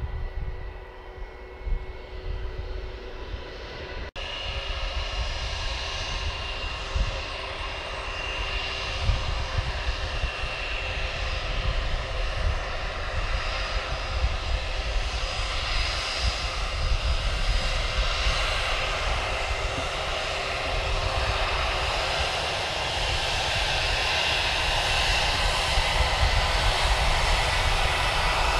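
Airbus A320's IAE V2500 turbofans at high thrust for take-off, a buzzsaw drone with several steady tones, growing louder as the jet comes closer. There is an abrupt break about four seconds in.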